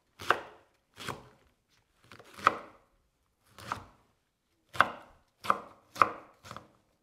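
Chef's knife slicing leek into half rings on a wooden cutting board: separate cuts, each ending in a knock of the blade on the board, about one a second and coming quicker near the end.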